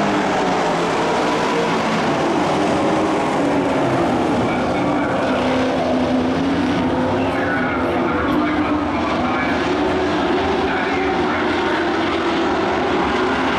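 Engines of dirt-track race trucks circling the track, a steady mechanical drone whose pitch wavers up and down as the trucks go around.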